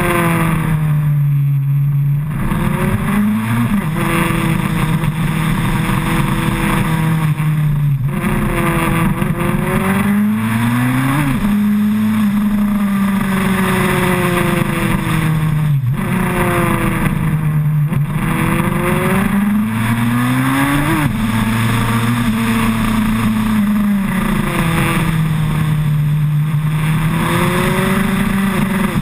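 2008 Suzuki Hayabusa's 1340 cc inline-four engine heard from a camera mounted on the bike, its pitch climbing and falling every few seconds as the rider works the throttle through curves, each climb ending in a sharp drop. Wind rush on the microphone runs underneath.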